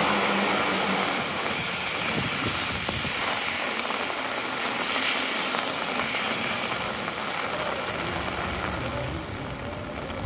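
Heavy rain on a city street: a steady hiss of downpour and wet traffic, with a city bus's engine hum fading out about a second in.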